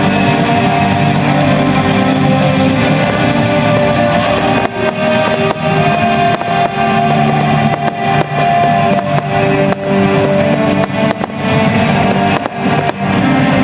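Loud guitar-led music, with sharp bangs and crackles of fireworks going off through it from about four and a half seconds in.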